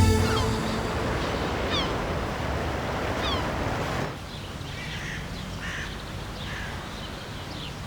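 Birds calling with short, falling chirps over a steady rushing noise like surf; about four seconds in the rushing drops away, leaving quieter bird chirps.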